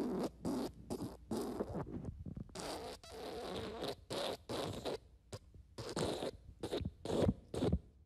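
Run of fart sound effects: about fifteen short, raspy blasts in quick succession, with one longer blast a few seconds in.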